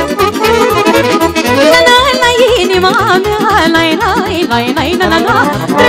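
Live band playing Romanian folk dance music: a steady low beat under a fast, warbling lead melody full of trills.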